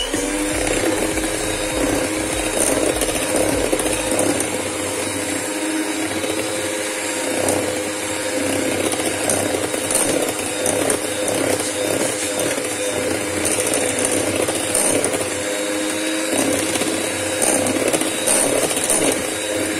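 Electric hand mixer running steadily, its beaters whipping a milk-based ice cream base in a steel bowl. The base is at the stage of turning fluffy and swelling in volume.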